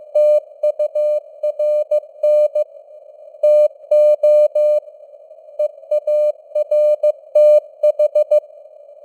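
Morse code sent at 15 words per minute: a single steady beep tone keyed on and off in dots and dashes, with short pauses between words, over a band of hiss from simulated radio noise. The code stops about eight seconds in, leaving only the hiss.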